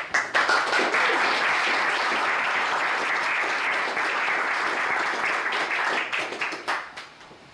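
Audience applauding: a steady spell of many hands clapping that dies away with a few last scattered claps about six to seven seconds in.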